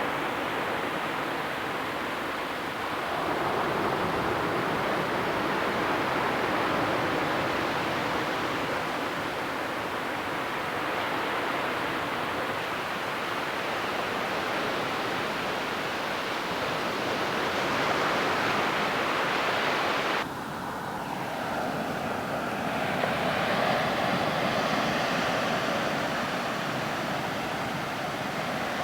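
Ocean surf washing onto a beach: a continuous rushing wash that swells and eases. About twenty seconds in, the sound changes abruptly, losing its hiss for a moment before the wash builds again.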